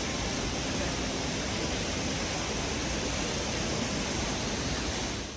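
Steady rush of water falling at Henrhyd Falls waterfall.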